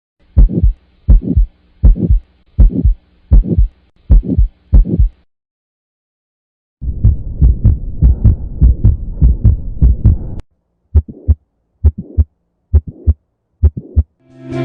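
Heart sounds heard through a stethoscope: paired lub-dub beats at about 80 a minute, then, after a short gap, beats with a steady rushing noise filling the spaces between them, typical of a heart murmur, and finally more widely spaced lub-dub beats.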